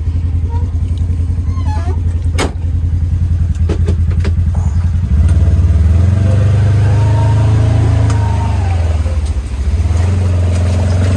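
Polaris side-by-side's engine running while the vehicle drives through floodwater, revving up about five seconds in, holding, then easing off near the end. A single sharp knock comes about two seconds in.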